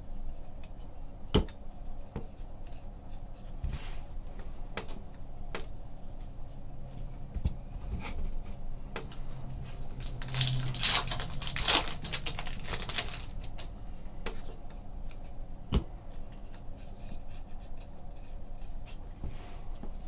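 Trading cards being handled and flipped through on a table, with scattered light clicks and taps, and a louder stretch of rustling about halfway through.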